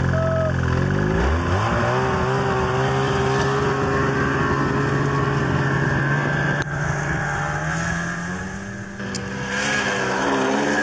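Ski-Doo Renegade Backcountry 600 E-TEC snowmobile's two-stroke twin engine revving up from idle about a second in, then running at steady high revs as the sled pulls away and climbs a snow hill. Near the end the engine note wavers up and down.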